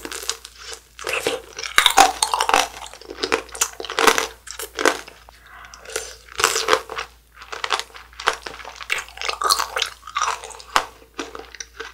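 Biting into and chewing a white-strawberry tanghulu: the hardened sugar-candy coating crunches irregularly between the teeth.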